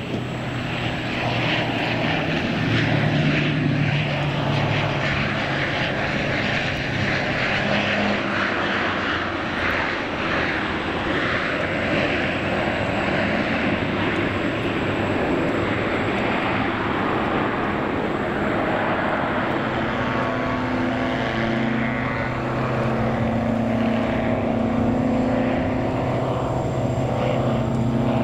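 Propeller aircraft engine running steadily: a continuous rushing noise that, about twenty seconds in, takes on a clearer, steady pitched hum.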